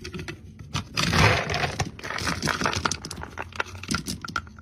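Dry pet kibble rattling and crunching as a plastic scoop digs into a plastic food bin, with the bin's lid scraping. It comes as a noisy rustle about a second in, then many sharp clicks and rattles of pellets.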